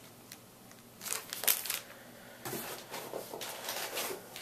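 Plastic bait packaging rustling and crinkling as zip-top bags of soft-plastic lures are handled, in irregular bursts with a few sharp clicks starting about a second in.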